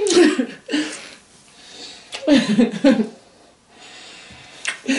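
Human voices in several short, wordless bursts with breathy exhales, the emotional vocal sounds of people embracing.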